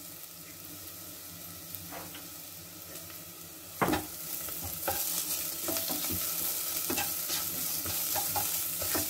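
Onions sizzling as they fry in a nonstick pan. About four seconds in, a wooden spatula knocks the pan and starts stirring them, scraping and tapping against the pan, and the sizzle grows louder.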